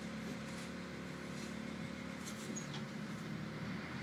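Diesel engine of a szynobus railbus idling steadily while the railcar stands at a stop, heard from inside the passenger compartment as a low, even hum.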